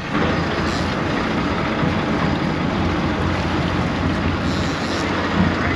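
Sportfishing boat's engine running steadily, a low drone under a constant rush of wind and water.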